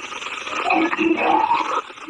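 Close-miked chewing: a mouth crunching and grinding a brittle, chalky material in irregular bites.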